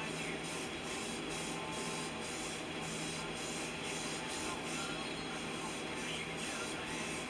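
Airbrush spraying paint with a steady hiss that pulses about three times a second in its high part, over a steady low hum.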